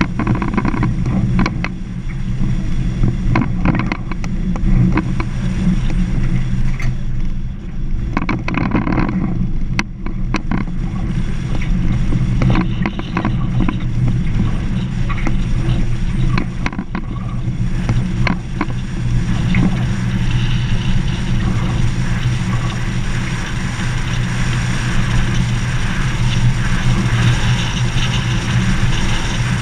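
A vehicle driving on a gravel dirt road: a steady low engine drone with frequent short rattles and knocks from the rough surface, and a hiss that grows stronger about two thirds of the way through.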